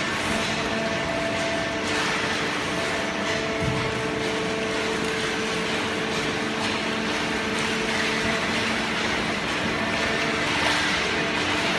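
Waste paper baling machine running: a steady mechanical hum with a few held tones that drop in and out over a bed of machine noise.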